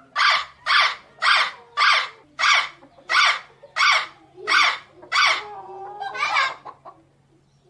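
Parrot giving a run of nine short, harsh, evenly spaced calls, then a longer warbling call about six seconds in.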